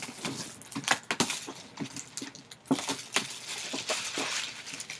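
Clear plastic shrink-wrap being torn and peeled off a cardboard box, crinkling and crackling in quick irregular clicks, busiest in the second half.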